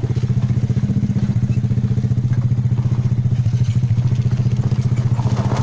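Small motorcycle engine running steadily at low, even revs, its firing pulses in a rapid, regular beat.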